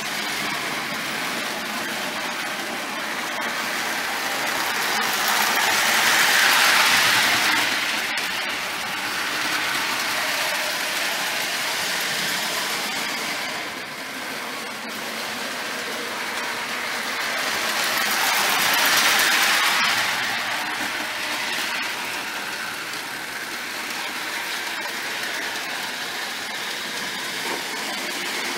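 Marx No. 666 toy steam locomotive pulling its cars around tinplate O-27 three-rail track: a steady whirring rattle of the electric motor and wheels on the metal rails. It swells twice, about twelve seconds apart, as the train comes round on each lap.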